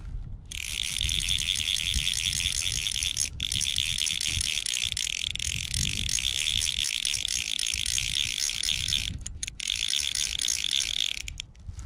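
A fly reel's click-and-pawl drag ratcheting rapidly and continuously as line runs through it while a trout is being played. It stops briefly about three seconds in and again for moments near the nine-second mark, then cuts off just before the end.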